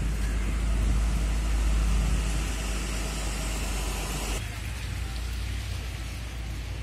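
Wind rumbling on the phone's microphone over a steady rushing outdoor hiss of stormy weather. The rumble drops suddenly about four and a half seconds in.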